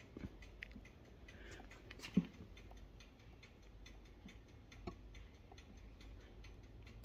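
Small metal clicks and knocks as Velocette LE clutch parts are rocked by hand to feel for play in a bearing, with two sharper clicks about two seconds in and near five seconds. Under them runs a faint, even ticking.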